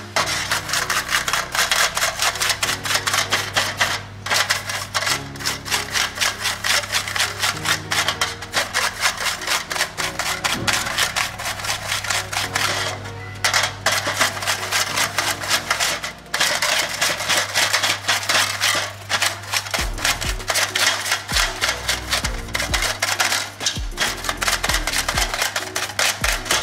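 A paintbrush scrubbing piston oil rings against the bottom of a shallow metal tin: fast, scratchy back-and-forth strokes, over background music with a steady bass.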